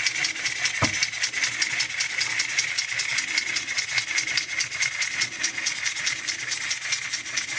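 Toy Ferris wheel turning: a steady high motor whine with rapid, even clicking or rattling, and a single thump about a second in.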